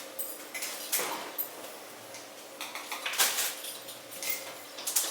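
Refrigerator door and a chocolate mold being handled: a few short knocks and scuffs spread over several seconds.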